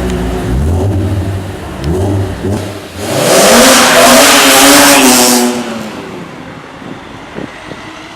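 Wiesmann roadster's engine running low, then opened up hard about three seconds in: it rises in pitch and is very loud for a couple of seconds, then fades away as the car drives off through a tunnel.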